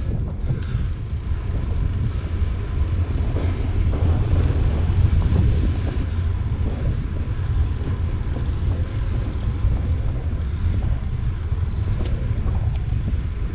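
Wind buffeting the microphone of a bicycle-mounted camera, with bike tyres rolling over tarmac: a steady low rumble.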